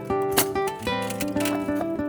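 Background music: acoustic guitar, played with quick plucks and strums.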